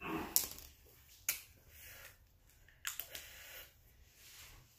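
Three sharp clicks with light rustling between them, from marker pens being handled while colouring a foam squishy.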